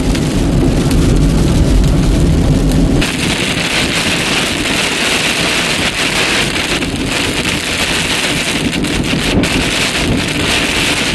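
Heavy rain hitting a car's windshield and body from inside the moving car. A low rumble dominates for about the first three seconds, then the sound switches abruptly to a loud, steady rain hiss.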